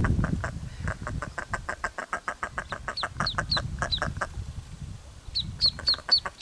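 Goldeneye ducklings peeping from a nest box: two runs of about five high, falling peeps, over a rapid clucking call repeated about eight times a second that pauses briefly in the middle.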